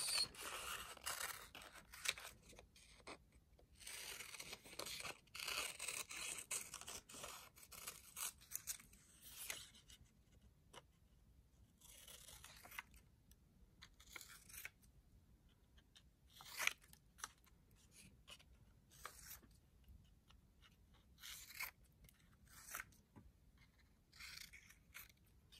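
Scissors snipping through paper, cutting picture cards off a printed strip, with the paper rustling as it is handled. Faint, in uneven spells with short pauses between them.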